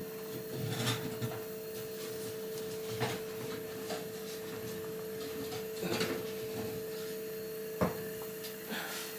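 A few light knocks and clicks from dishes and utensils being handled, over a steady, faint hum.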